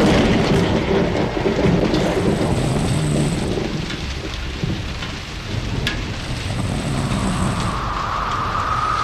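Steady rain with low rolling thunder, with a thin steady tone fading in near the end.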